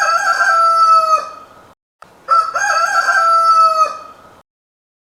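Rooster crowing cock-a-doodle-doo twice, the second crow an identical repeat of the first, each about a second and a half long with a short gap between.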